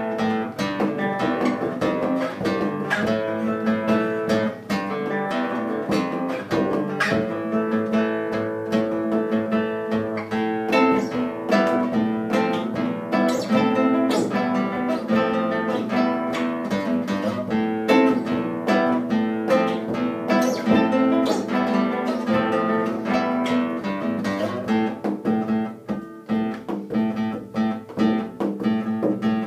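Nylon-string classical guitar playing a slow, rhythmic folk dirge in plucked and strummed chords, accompanied by a bodhran beaten with a tipper. Near the end the playing thins into more spaced-out strokes.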